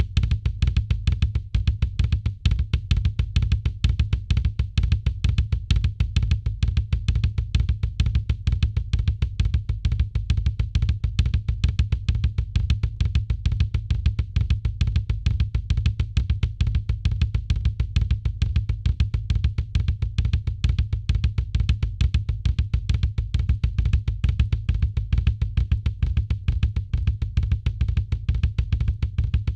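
Drum kit played without a break in a fast, even Herta rudiment ostinato, with the bass drum strokes heavy underneath.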